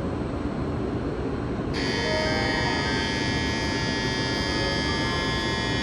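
An electronic platform buzzer starts abruptly about two seconds in and sounds steadily, a shrill multi-toned ring, over the low hum of a Shinkansen train standing at the platform.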